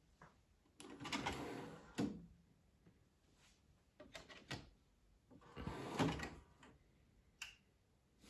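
Philips CD960 CD player's motorised disc tray running open and stopping with a knock about two seconds in, a few light clicks as a disc is set in it, then the tray running shut and stopping with another knock about six seconds in.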